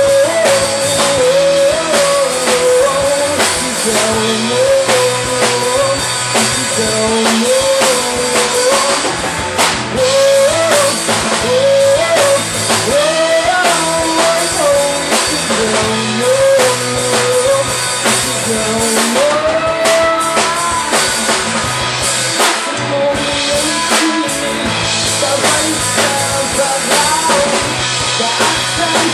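Live rock band playing: drum kit, electric guitar and bass guitar, with a singer holding a wavering "ohh, ohh" melody over them.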